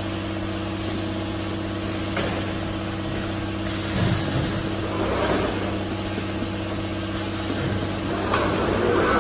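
Automatic jug palletizer running: a steady machine hum, with bursts of air hiss from the pneumatic gripper and a knock about four seconds in as a plastic jug is set down on the stack.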